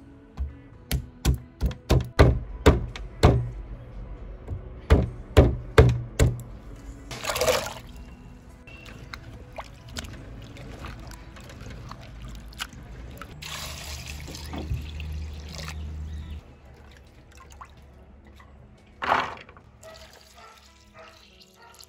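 A knife chopping jackfruit seeds on a wooden cutting board, a run of sharp knocks about two a second, then water sloshing as hands scrub the seeds in a clay pot, and near the end a brief splash of water poured into a clay pot.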